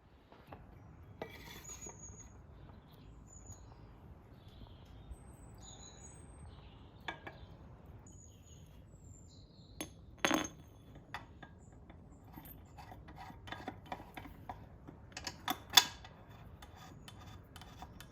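Light metallic clinks and clicks of hand tools and metal parts being handled, scattered and irregular, with one sharper knock about ten seconds in and a quick run of clinks near the end.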